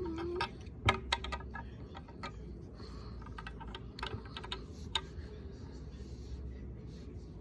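Small plastic pieces and packaging being handled: a quick cluster of sharp clicks and taps about a second in, then scattered lighter clicks, over a steady low room hum.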